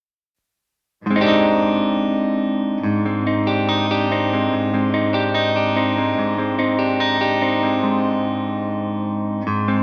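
Electric guitar through a Diezel VH4 tube amplifier, with an effects-unit sheen, starting abruptly about a second in and ringing out in sustained chords. A deeper note joins about two seconds later.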